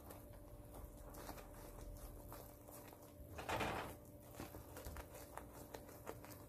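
Silicone spatula stirring and scraping a thick, thickening khoya mixture of milk and dry milk around a nonstick pan: faint soft scrapes and small wet clicks, with a louder scrape a little past halfway. A faint steady hum runs underneath.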